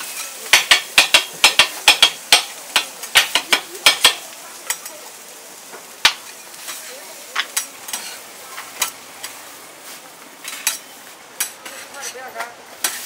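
Metal spatula edges chopping a rolled, filled crepe on a steel griddle: a quick run of sharp clicks, about four a second, for the first four seconds. After that come scattered scrapes and clicks as the griddle is scraped, over a faint sizzle.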